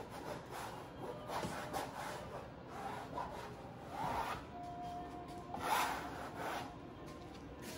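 Derwent Inktense ink block scribbled across a canvas: dry, rasping rubbing strokes that come and go irregularly, the strongest about four and six seconds in.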